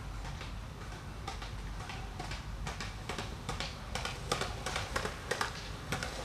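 Skateboard rolling along a concrete sidewalk, its wheels clacking sharply over the joints at an uneven rhythm, several clacks a second, growing louder as it nears.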